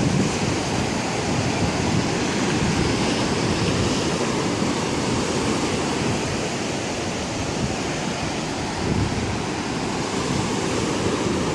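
Sea surf washing continuously onto a beach, with wind rumbling on the microphone.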